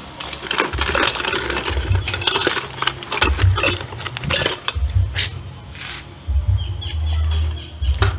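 Irregular metallic clinks and knocks, many in quick succession, with low thumps in between.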